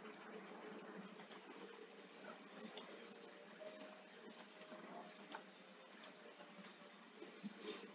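Faint computer mouse clicks and a few keyboard key taps, scattered irregularly over a low steady hum.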